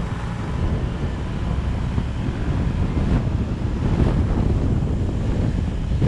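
Wind buffeting the microphone of a camera moving along a road: a heavy, uneven low rumble with a few short gusts.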